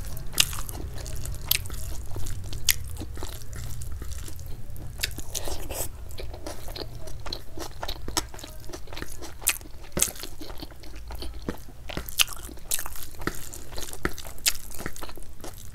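Close-miked eating: chewing a mouthful of rice and curry, with many sharp crunchy and wet mouth clicks coming irregularly. A low hum sits underneath.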